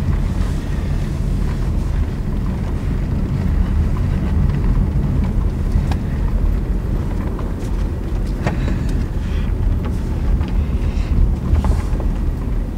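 A car being driven, heard from inside the cabin: a steady low rumble of engine and tyres, with a few faint clicks.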